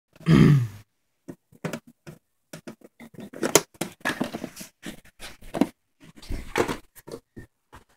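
A short, loud sound falling in pitch at the very start, then a scattered run of rustles, knocks and clicks as the camera is handled and moved about.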